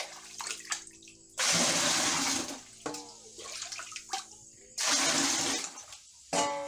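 Milky water poured out of a scooping cup twice, each pour about a second long. It is the top water being drained off arrowroot starch that has settled in the bucket.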